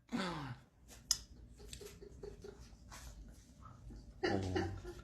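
Faint human vocal sounds in a quiet room: a short falling-pitch voice at the start and a brief louder voice near the end, with a single sharp click about a second in.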